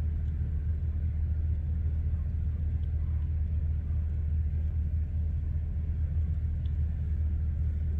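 A steady low rumble of wind buffeting the microphone in a snowstorm, with a couple of very faint, brief calls from distant cranes.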